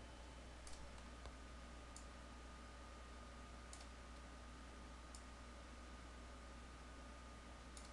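Faint computer mouse clicks, about half a dozen spread irregularly, as points are picked and dragged in CAD software. Underneath is near-silent room tone with a low hum and a thin steady whine.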